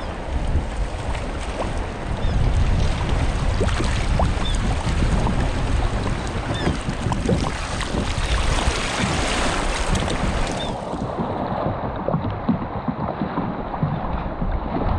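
Wind buffeting the microphone on open sea water, with water sloshing and splashing around the boat in short irregular splashes.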